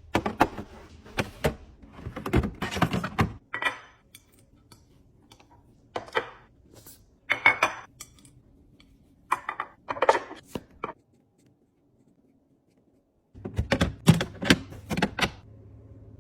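Restocking clatter: containers, bottles and packaged snacks knocked and set down one after another in quick clusters, with a near-quiet pause of about two seconds in the second half.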